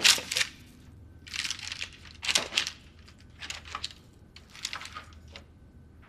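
Knife sawing through the crisp puff-pastry crust of a beef Wellington: a series of short crackling crunches about a second apart.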